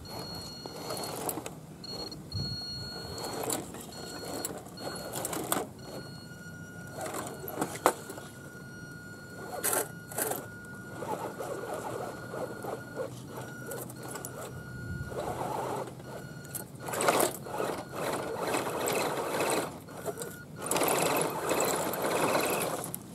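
Scale RC 4x4 crawler truck's electric motor and drivetrain whining in stop-start pulls, with the tyres and a towed log trailer crunching over loose dirt and small stones. The whine comes and goes as the throttle is worked, and the crunching grows louder near the end.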